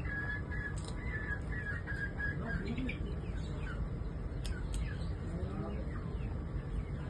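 Birds chirping in a string of short calls during the first half, with a brief pitched call near the end, over a steady low rumble.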